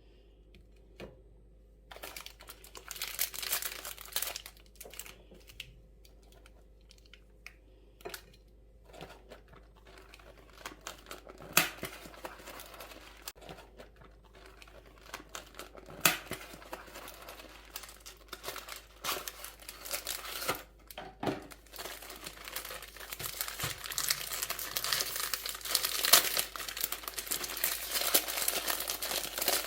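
Crinkling of packaging being handled, in irregular bursts that begin about two seconds in. A few sharp clicks fall in the middle, and the crinkling grows busier and louder over the last third.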